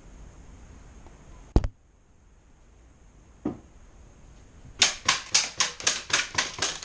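Airsoft gun shots: a single sharp crack, a fainter one about two seconds later, then a quick string of about nine shots at roughly four to five a second.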